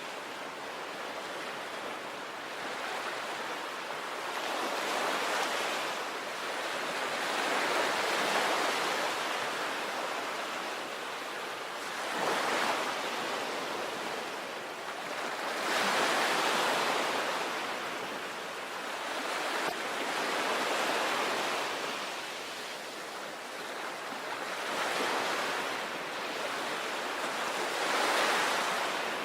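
Sea waves breaking on a beach: a steady wash of surf that swells and ebbs every few seconds as each wave comes in, with a few sharper crashes.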